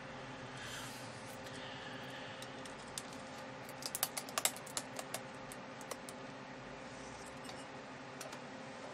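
Palette knife scraping paste across a plastic stencil on canvas board, faint, with a quick run of light clicks and taps about four seconds in.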